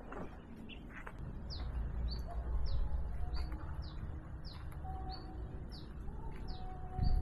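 Wild bird chirping: a run of short, high notes, each sliding downward, about two a second, starting about a second and a half in, with some lower, longer notes among them. A low rumble runs underneath, and there are a couple of clicks at the start.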